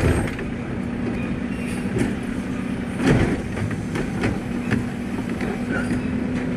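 Automated side-loader garbage truck's lifting arm working a wheeled trash cart, over the steady hum of the idling engine and hydraulic pump. There are clunks as the arm grips the cart at the start, and a louder knocking about three seconds in as the raised cart is tipped and shaken out over the hopper.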